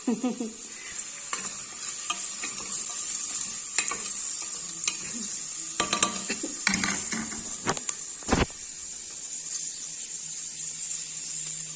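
Ginger and onion sizzling in hot oil in a pan while being stirred, the utensil clicking and scraping against the pan, with a sharper knock about eight seconds in.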